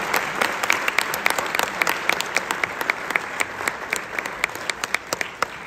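Audience applauding, with one person's sharp, evenly spaced claps standing out over the crowd's clapping. The applause gradually dies down.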